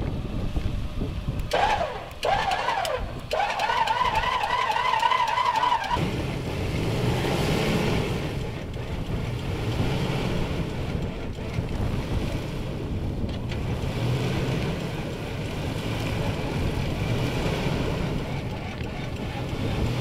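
A vehicle winch whining under load: two short pulls with the pitch rising, then a longer wavering run that cuts off about six seconds in. After that, the Mitsubishi Pajero Sport's engine runs steadily as the SUV drives along the muddy track, with wind noise.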